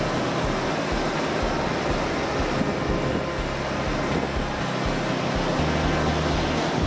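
Steady rush of river water, with a low wind rumble on the microphone.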